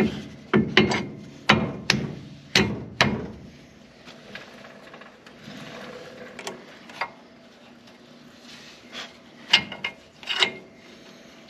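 Metal brake parts being handled and refitted on a truck's front wheel hub: a quick run of sharp clanks and knocks, a quieter stretch of metal rubbing and scraping in the middle, and two more knocks near the end.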